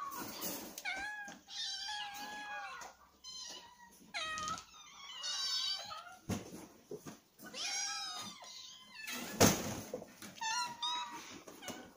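Several cats meowing over and over, their calls overlapping at times. A sharp knock sounds about nine and a half seconds in.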